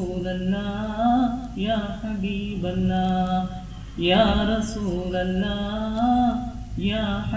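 A solo voice chanting unaccompanied, in long held notes. A new phrase begins every two to three seconds, each one opening with a melodic glide.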